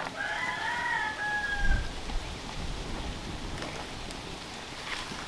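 A rooster crowing once, one call of under two seconds ending on a drawn-out note. A low thump about a second and a half in is the loudest thing.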